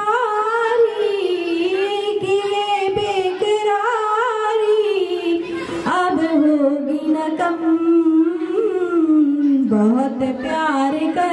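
A woman singing a slow melody with long held notes that waver and glide in pitch.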